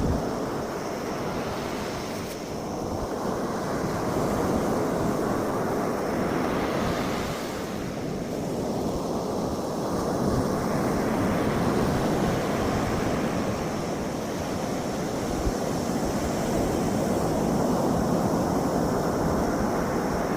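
Sea waves washing onto the shore, the surf noise swelling and ebbing every few seconds, with wind buffeting the microphone.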